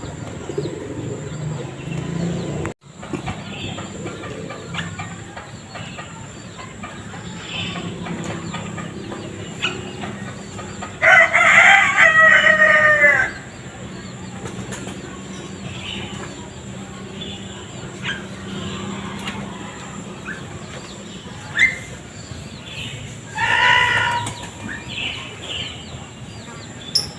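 A rooster crows, one loud call of about two seconds about eleven seconds in, and a shorter crow-like call near the end, with faint short bird chirps in between.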